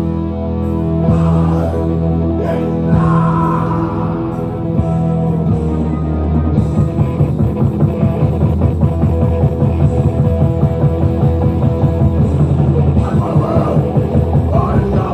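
A rock band playing live: held, ringing chords over a heavy low end, then about six and a half seconds in the band breaks into a fast, pounding rhythm, with some singing on top.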